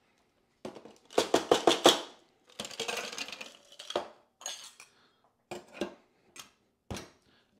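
Ice cubes poured into a stainless-steel cobbler cocktail shaker, clattering in a quick rush about a second in and again around three seconds in. Then a few separate metal clinks as the shaker's cap is fitted on.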